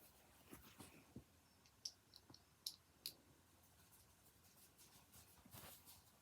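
Faint, scattered clicks of plastic Lego bricks being handled and pressed together, with a cluster of small sharp ticks in the first three seconds and a soft rustle near the end.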